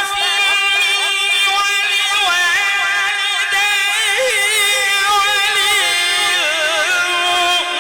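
A man's voice in melodic Quran recitation (tilawat), sung as one long unbroken phrase in a high, steady voice, with wavering ornamented turns near the middle and again near the end.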